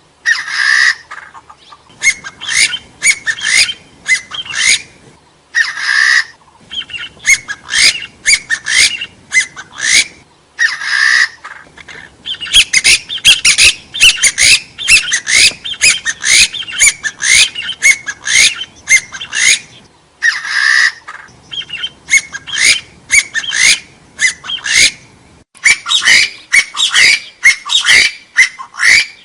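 Arborophila hill partridges (gà so) calling: long runs of short rising whistled notes, several a second, broken every few seconds by a harsher, rasping call about a second long.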